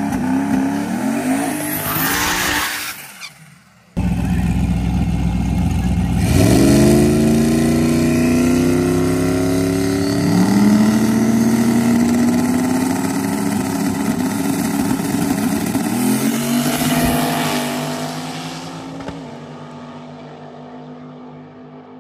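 Twin-turbo V8 drag cars, one a Coyote-powered Fox-body Mustang, running at the starting line with a burst of noise about two seconds in. After a sudden break the engines rev up in rising surges, then the cars launch down the track and the sound fades away over the last few seconds.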